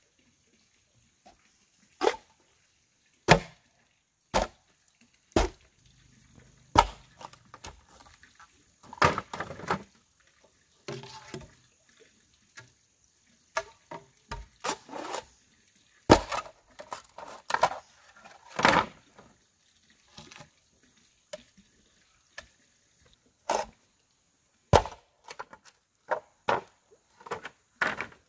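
Machete blade chopping into bamboo poles: irregular sharp strikes about a second apart, with a few longer cracking stretches as a pole splits lengthwise into strips.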